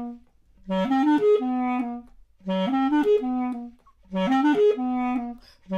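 Basset horn playing the same short phrase over and over, three times and starting a fourth: a few quick notes climbing, then a held low note, with short silent gaps between.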